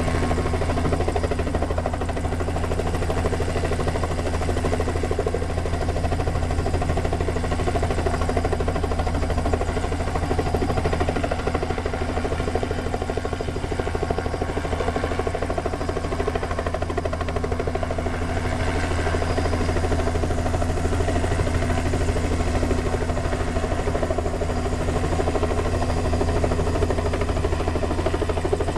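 Small two-bladed helicopter hovering: a steady rotor beat and engine drone that holds an even level.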